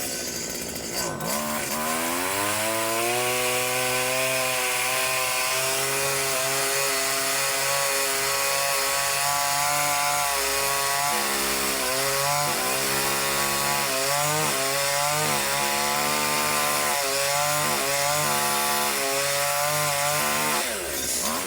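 Chainsaw engine revving up to high speed and running steadily, then about halfway through its pitch repeatedly dips and recovers as the chain bogs under load cutting branches. Near the end the revs drop away.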